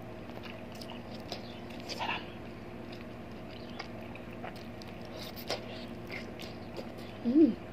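Close mouth sounds of eating ripe mango slices: soft wet smacks, sucking and chewing clicks, scattered and irregular over a steady low hum. A brief hummed voice sounds near the end.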